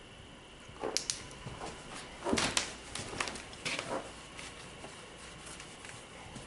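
Irregular knocks and scuffs of plywood boarding being bumped and handled around an opening in a boarded-up dumbwaiter shaft, loudest about two and a half seconds in.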